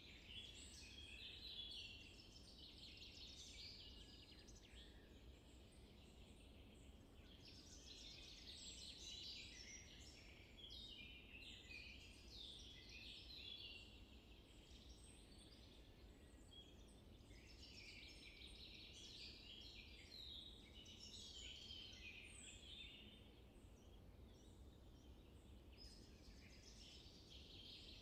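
Faint chorus of small birds chirping and twittering, swelling and fading every few seconds over a low background rumble.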